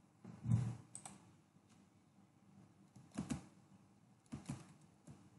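Faint keystrokes on a computer keyboard, coming in a few short clusters of clicks. The loudest and dullest comes about half a second in.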